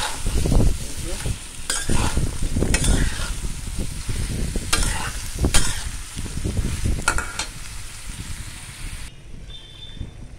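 Metal spatula stirring and scraping chunks of bottle gourd around an aluminium pan, with several sharp scrapes and clinks over the hiss of frying in oil. The frying hiss cuts off suddenly about nine seconds in.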